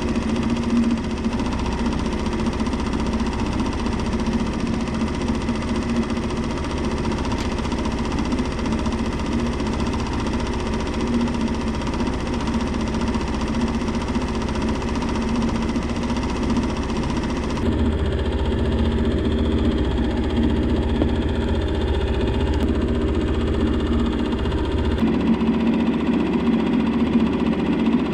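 Boat's outboard motor running steadily at trolling speed, a low even drone, with a slight change in tone about two-thirds of the way through.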